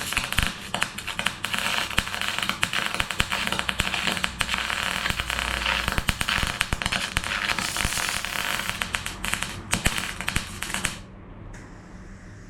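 Welding arc crackling steadily while a weld is run on the steel sill panel, stopping abruptly about eleven seconds in.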